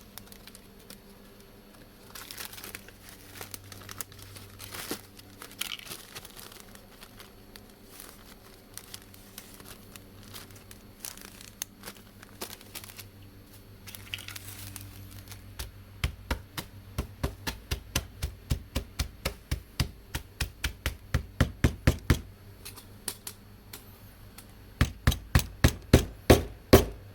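Plastic bag and pill packaging crinkling as cooling-system sealant pellets are handled. From about sixteen seconds in, a fast run of sharp knocks, about three a second, as the pellets are pounded inside a Ziploc bag on a workbench to crush them. The knocks pause for a few seconds and then start again near the end.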